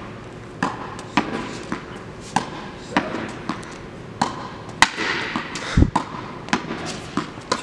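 Tennis ball hit again and again against a practice wall with backhand strokes: racket strikes, the ball smacking the wall and bouncing on the court, a steady run of sharp pops about every half second, with one deeper thud a little past the middle.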